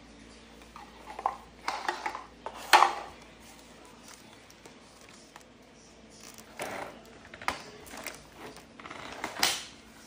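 Hard plastic parts of a cordless stick vacuum and its accessories knocking, clicking and rustling as they are handled. There are scattered knocks, and the loudest comes a little before three seconds in; the vacuum's motor is not running.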